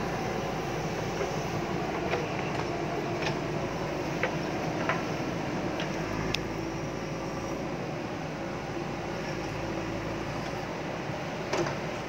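JCB backhoe loader's diesel engine running steadily as the machine works a pit, with a few brief knocks scattered through.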